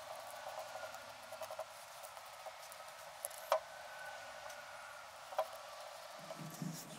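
Faint scraping and patting of a card spreader working black filler into a hole in a wooden disc, with two sharper clicks, one about halfway through and one near the end.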